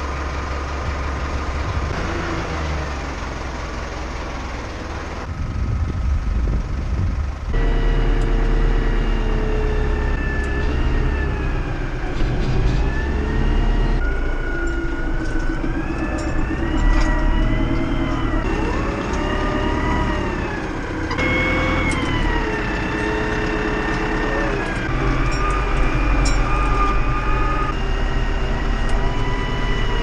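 Tractor engine running under load, heard from inside the cab, with a steady low rumble and a whine that rises and falls in pitch as the tractor drives.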